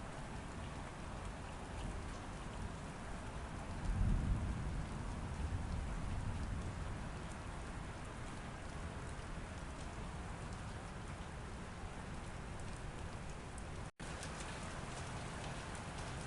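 Steady rain falling, with a low rumble of thunder lasting about a second and a half, starting about four seconds in. The sound cuts out for a split second near the end.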